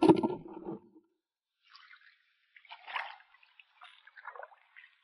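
A crab dropped into a plastic bucket lands with a thump, then shallow tidal water trickles and drips faintly for the rest of the time.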